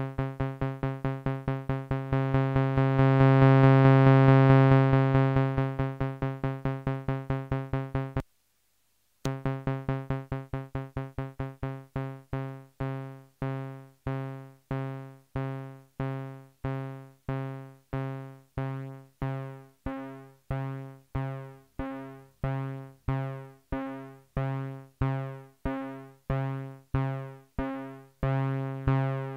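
MFOS Sound Lab Mini-Synth playing one steady low, buzzy note, repeatedly opened and closed by its AR envelope through the VCA. Fast repeated notes swell into a held tone for a couple of seconds, the sound cuts out for about a second, then it returns as slower, evenly spaced notes, about one and a half a second, each starting sharply and dying away, as the envelope and VCA knobs are turned.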